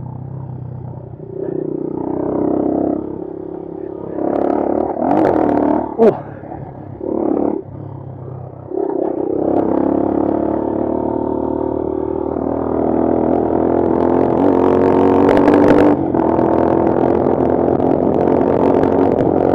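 Bashan Brozz 250 dual-sport motorcycle engine revving in surges as the throttle is opened and closed on a dirt trail, then pulling steadily and climbing in revs near the end. There is one sharp knock about six seconds in.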